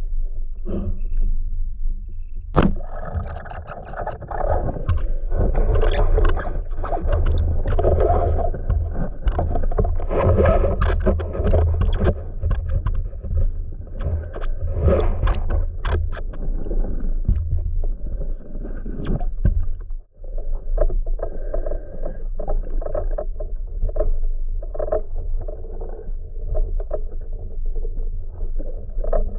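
Muffled underwater sound through a submerged camera's housing: a continuous rumble and swishing of water stirred by a swimming diver, with one sharp knock about two and a half seconds in.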